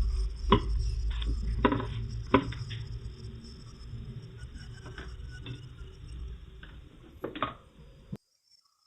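Kitchen utensil knocking and scraping against a pan: several sharp clacks over a low handling rumble, cutting off suddenly near the end.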